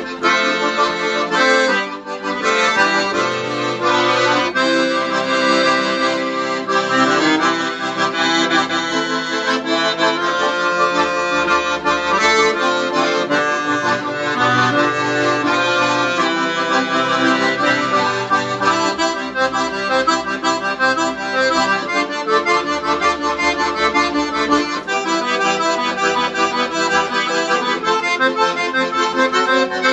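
Two piano accordions playing a hymn tune together in duet, melody over sustained chords with bass notes, without a break.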